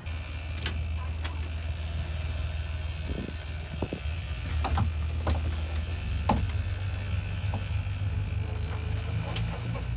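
Sport-fishing boat's engine running with a steady low drone, under wind and water noise, with a few short clicks and knocks scattered through.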